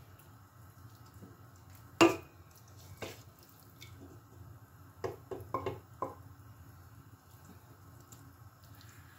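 Wooden spoon scooping cooked chard out of a metal pressure-cooker pot and dropping it onto a plate: a sharp knock about two seconds in, a lighter one a second later, and a quick run of soft wet taps between five and six seconds, over a faint low hum.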